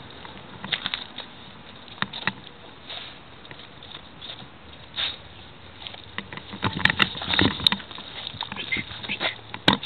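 Golden retriever sniffing and mouthing at the chunks of a burst snowball, a scatter of short sniffs and snow crunches that come thicker in the second half.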